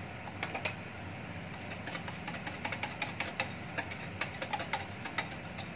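A spoon stirring and beating yogurt in a glass bowl, clinking irregularly against the glass. The clinks start about half a second in and come quicker from the middle on, over a steady low hum.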